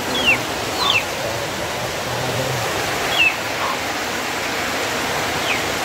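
Steady rain falling, an even hiss, with four short high chirps that fall in pitch, from a bird.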